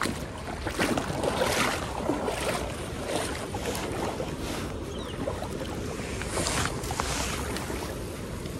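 Shallow river water splashing and lapping close by as an angler wades, with wind buffeting the microphone and a few small clicks and knocks.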